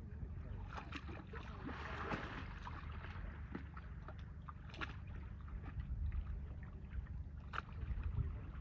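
Water sloshing and splashing in irregular bursts with scattered clicks as Asian elephants move about in a pool, over a steady low rumble.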